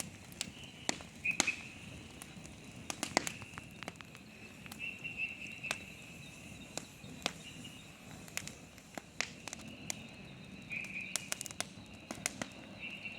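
Night-time insect chorus in the forest: a steady high-pitched buzzing trill that swells and fades. It runs with irregular sharp clicks and cracks scattered throughout.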